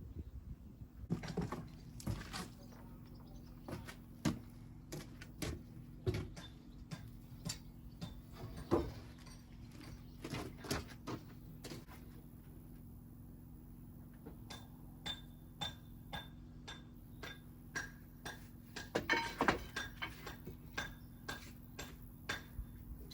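Irregular knocks and clinks of hand tools on stone, some with a short metallic ring, coming thicker about two-thirds of the way through, over a steady low hum.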